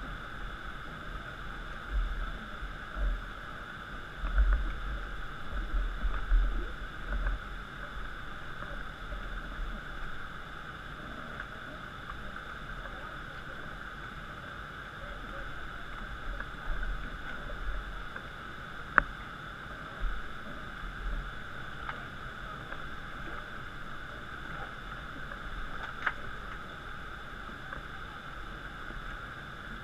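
Steady rush of river rapids, with low thumps now and then and a sharp click about nineteen seconds in.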